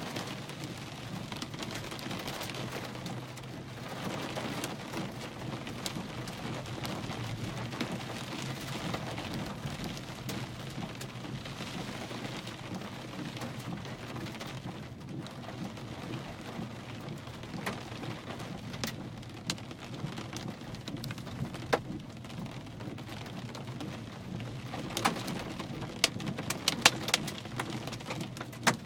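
Hail and rain pelting down in a steady dense patter, with sharp individual hailstone impacts that come thicker and louder over the last few seconds.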